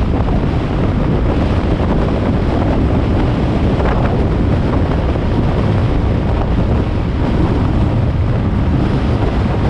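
Steady, loud wind rumble buffeting the microphone.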